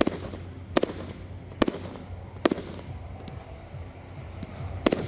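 Aerial fireworks bursting overhead: four sharp bangs about 0.8 s apart, each with a short echoing tail, then a pause of about two seconds before another bang near the end.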